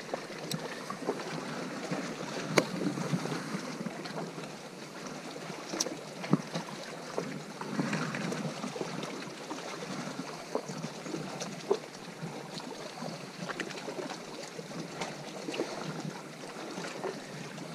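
Small waves lapping against a rocky shoreline, with wind on the microphone, and a few sharp ticks scattered through it.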